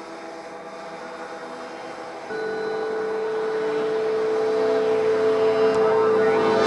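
Electric pressure washer running, a steady hum made of several tones. About two seconds in a new steady tone joins and the sound steps up, then grows gradually louder.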